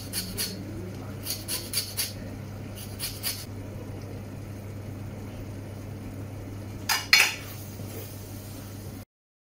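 Lemon rind scraped across a handheld metal grater in three short runs of quick strokes, then a louder metal clatter against the pan about seven seconds in, all over a low steady hum. The sound cuts out just before the end.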